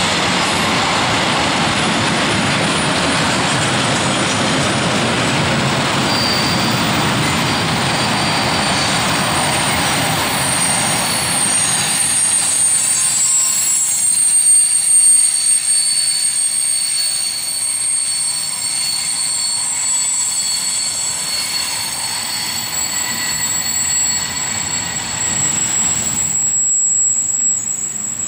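Freight wagons, sliding-wall covered wagons, rolling past on the rails with wheel rumble and clatter. About halfway through the rumble thins and steady high-pitched wheel squeal stands out. The end of the train passes near the end.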